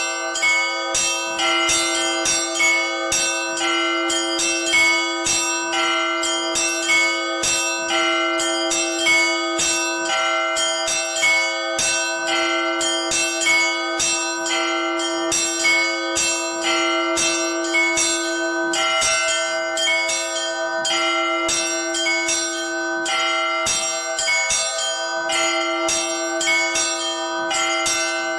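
Russian Orthodox church bells (zvon) played by one bell ringer: quick, rhythmic strikes on the small high bells, several a second, over a steady ringing lower bell tone.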